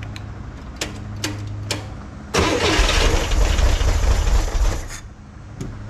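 A 1963 Corvair's air-cooled flat-six is cranked on its starter with the chokes newly hooked up on a cold engine. After a few sharp clicks, it catches about two seconds in, runs for about two and a half seconds and then dies.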